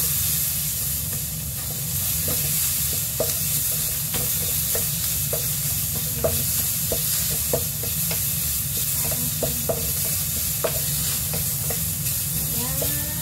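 Tomato, onion and garlic sizzling in a wok while a wooden spatula stirs and scrapes them, its tip knocking lightly and irregularly against the pan, over a steady low hum.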